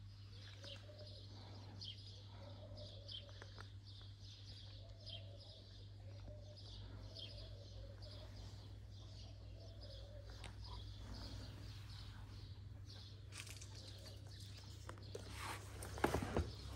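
Small birds chirping over and over in short, high calls, with a steady low hum underneath. Near the end there are a few louder rustles and knocks.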